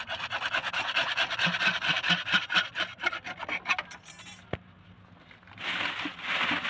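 Hacksaw cutting through CPVC plastic pipe in fast back-and-forth strokes for about four seconds, then stopping as the piece comes free. After a single click, a plastic bag rustles near the end.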